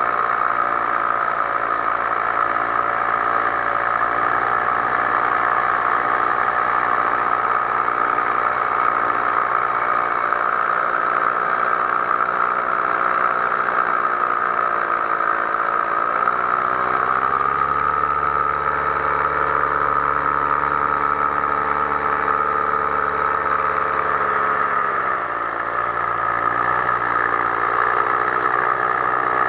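Powered paraglider's paramotor engine and propeller running steadily in flight. The engine note dips and rises about halfway through, then shifts again near the end.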